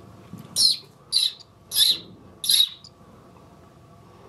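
Swallow nestling chirping from its nest: four short, high calls about half a second apart, then it falls quiet.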